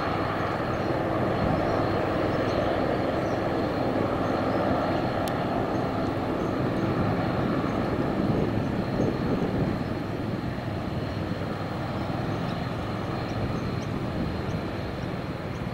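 Airliner engines at takeoff power during a departure: a steady, dense engine noise, loudest through the first half and slowly easing off after about ten seconds.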